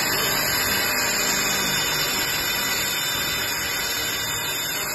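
CNC vertical milling machine's spindle running as the end mill cuts a part held in a vise: a steady machining noise with a faint low hum underneath.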